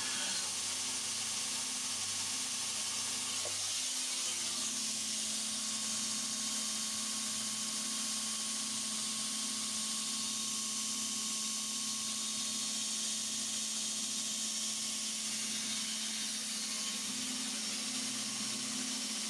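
A power tool running steadily: a motor hum with a continuous hissing grind over it, the hum shifting in pitch about four seconds in.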